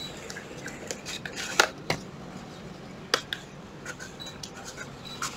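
Scattered light clicks and knocks, a few sharper ones among small ticks, as tools and plastic parts are handled and set down.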